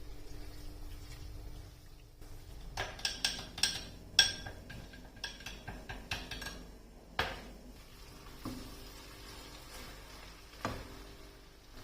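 Kitchen utensils and dishes clinking: a quick run of ringing clinks for a few seconds, then a few single knocks.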